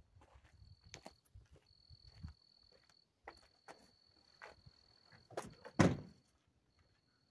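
Footsteps and rustling of gear, then a pickup truck door shut with a heavy thump just before six seconds in, after a sharper knock. A steady high trill comes and goes underneath.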